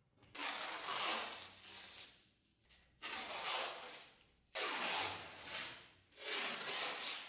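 Adhesive tape being pulled off its roll in four long strips, each a second or so of tearing noise.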